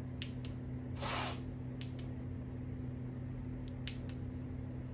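Pairs of sharp clicks repeating about every two seconds, typical of the electric scooter's light flasher relay, over a steady low electrical hum. A short hiss comes about a second in.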